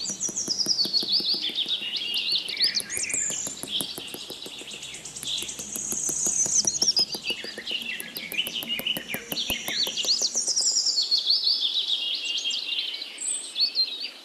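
Several birds chirping and whistling in quick, rising and falling notes, with a fast ticking trill in the middle.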